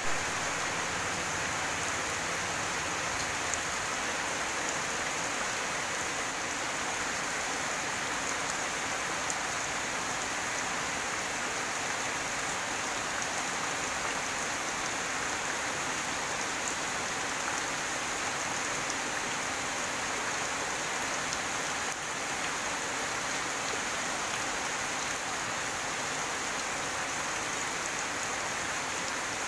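Steady heavy rain falling on garden plants and foliage: an even, unbroken hiss.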